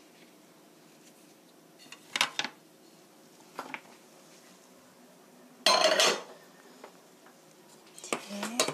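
Dishes knocking and clattering on a tabletop as flour-coated pepper halves are handled and the plate is moved: a few separate sharp knocks, the loudest a half-second clatter about six seconds in, with a short run of knocks near the end.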